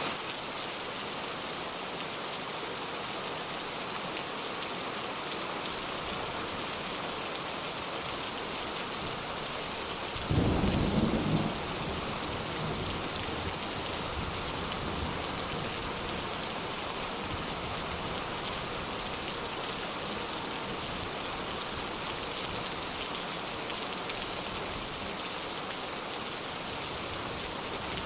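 Steady heavy rain falling, with a loud clap of thunder about ten seconds in that lasts a little over a second, followed by low rumbling under the rain.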